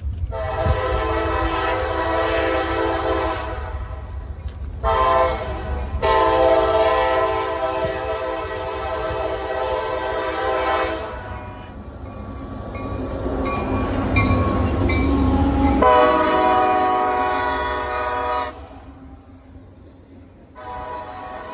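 A CSX freight locomotive's multi-chime air horn sounds for a grade crossing in four blasts: a long one, a short one, a long one, and after a pause another long one. Between and after the blasts the diesel and the train's wheels rumble as it passes.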